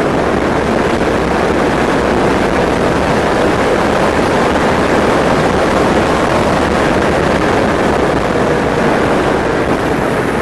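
Steady rush of wind and road noise from riding an E-Mobo DuoTork dual-motor electric scooter at speed.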